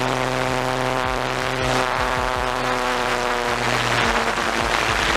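Electric motor and propeller of a Night Radian RC float plane running at steady throttle, a loud buzzing drone with a rushing hiss. The buzz fades about four seconds in while the hiss carries on.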